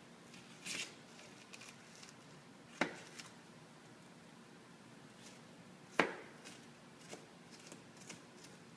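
Knife chopping an onion on a plastic cutting board in slow, irregular strokes: two sharp knocks about three and six seconds in, with lighter taps and rustling between.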